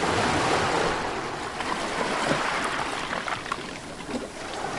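Water sound effect: a steady rush of splashing water with scattered bubbling pops, fading out near the end.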